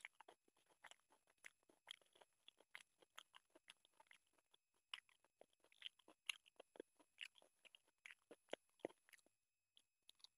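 Close-miked hand-eating of rice and chicken curry: fingers squishing the wet rice and curry together, with chewing and lip smacks, a rapid run of small wet clicks that stops about nine seconds in.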